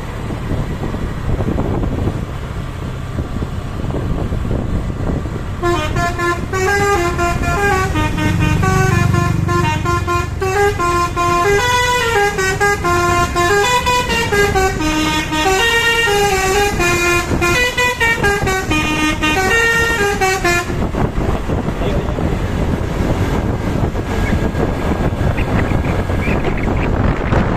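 Bus 'telolet' multi-tone horn playing a loud, melodious, snaking Pakistani-style tune, its notes stepping up and down, starting about six seconds in and stopping abruptly some fifteen seconds later. Engine, road and wind noise run under it.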